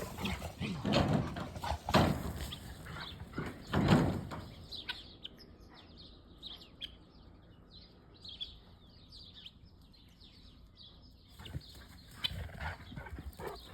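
Faint small-bird chirps, many short high calls, after a few louder scuffling thumps in the first four seconds.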